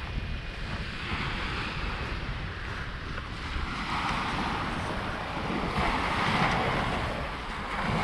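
Small waves breaking and washing up a pebbly beach, the surf swelling louder about six seconds in, with wind rumbling on the microphone.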